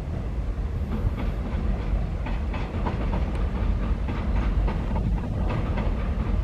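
Seoul Subway Line 4 electric train running past, its wheels clattering over rail joints and points with a steady low rumble and many irregular clicks starting about a second in.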